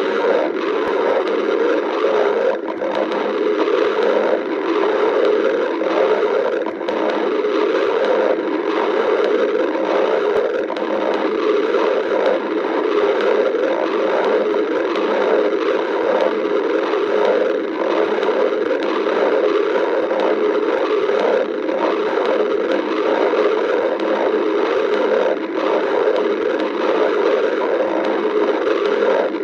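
Stomach growling: a steady, unbroken low rumble from a hungry stomach that churns slightly but never pauses.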